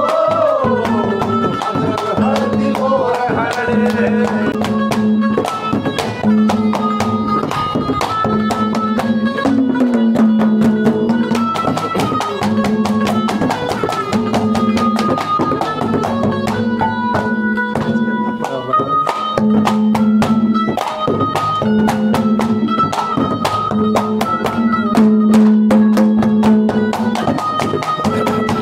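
Instrumental interlude of Haryanvi ragni folk music: a melody instrument playing over a steady, dense drum beat and a held low drone.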